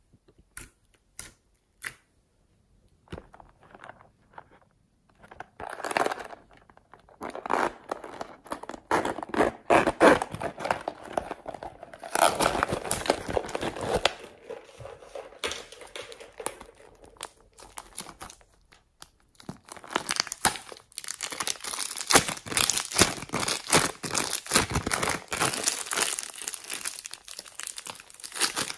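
Slime being handled by hand: a few separate clicks at first, then dense sticky clicking and popping as the slime is pressed, pulled and squeezed, mixed with crinkling plastic.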